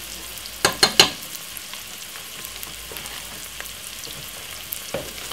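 Chopped onion, garlic and spring onion frying in vegetable oil in a pot, with a steady sizzle. About a second in come three quick knocks, the metal spoon against the pot as the paprika goes in.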